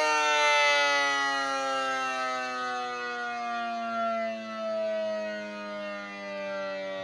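Mini ACA P-50 siren winding down, its tone falling slowly and steadily in pitch as the rotor coasts.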